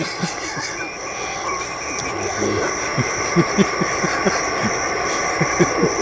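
HF amateur transceiver's receiver being tuned slowly across the 20-metre single-sideband phone band: band hiss with fragments of off-tune voices warbling up and down in pitch.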